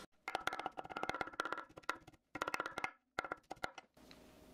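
Fast knife chopping on a cutting board, mincing grilled beef: rapid strikes in four or five short bursts with dead stops between them.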